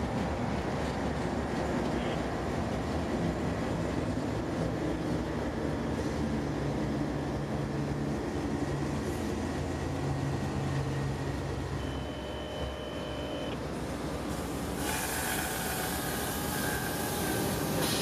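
Slow-moving freight train of loaded ethanol tank cars rolling on the rails, a diesel locomotive engine running low under the rumble. A thin high whine sounds for about a second and a half about two-thirds of the way in, and the sound turns brighter and hissier near the end.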